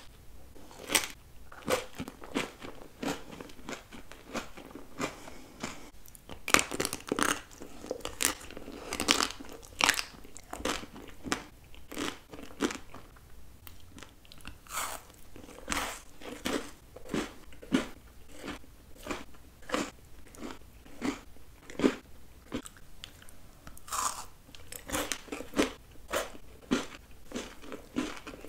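Close-miked eating: bites crunching through chocolate-covered ice cream bars and candy, with chewing between them, about one crunch every second, irregular.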